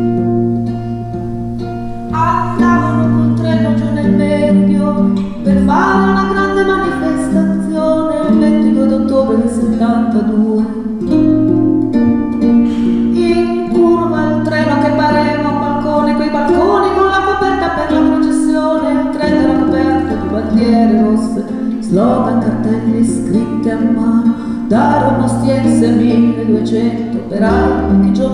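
Live acoustic folk music: a piano accordion, an acoustic guitar and a double bass playing together, with a woman singing over them from about two seconds in. The double bass holds long low notes that change every few seconds.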